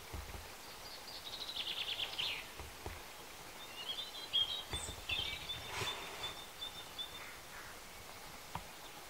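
Small songbirds singing: a fast, slightly falling high trill lasting about a second and a half, then a looser string of high chirping notes a few seconds later.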